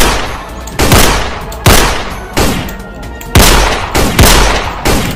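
Gunfire in an exchange of single shots, about eight in all, each sharp report trailing off in a long echoing tail, roughly one a second at first and coming faster in the second half. These are added gunshot sound effects, since the guns in the scene are toy props.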